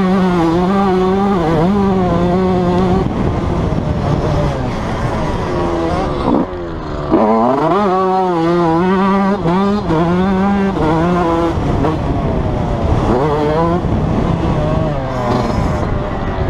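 Yamaha YZ125 two-stroke motocross engine revving hard while being ridden, heard close on board. Its pitch holds high, drops sharply about six seconds in as the throttle closes, then climbs again in quick rising and falling surges with throttle and gear changes.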